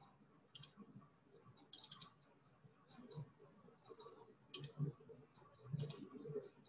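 Faint, irregular clicking of a computer keyboard and mouse, some clicks in quick little clusters.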